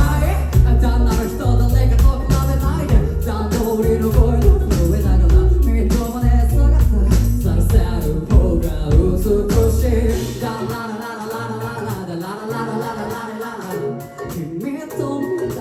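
A rock band playing live with a singer, full band with bass and drums. About ten seconds in, the bass and heavy drums drop out and a lighter part with the voice carries on.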